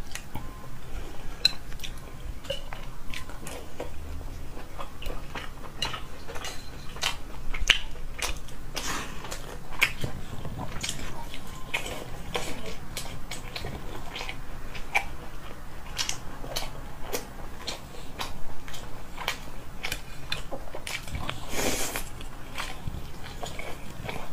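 Close-miked chewing and biting of soft, fatty braised pork belly: a steady run of wet mouth clicks and smacks, with one longer, noisier mouth sound near the end.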